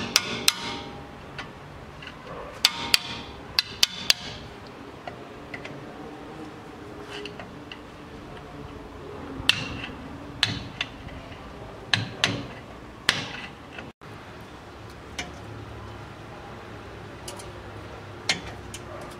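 Metal hand tools clinking and tapping at a car's front wheel hub as the cotter pin and axle nut are worked off: a series of sharp, irregular clicks and knocks.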